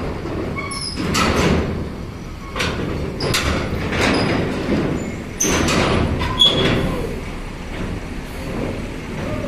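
Buses' air brakes hissing in a string of short bursts, about seven of them, over the low rumble of diesel engines running.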